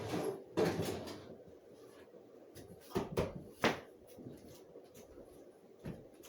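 Rummaging during a search for a missing item: several separate clunks and knocks of hard objects being moved about. There is a cluster in the first second, three more knocks about three seconds in, and one near the end.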